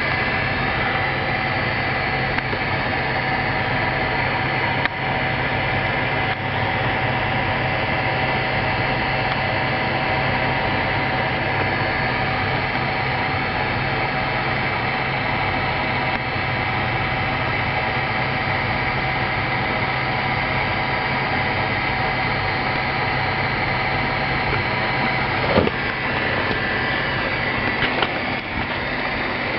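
Sioux 622N valve grinder running steadily, its electric motor humming and its worn, cracking belts driving the grinding wheel and valve chuck. A couple of light knocks come near the end.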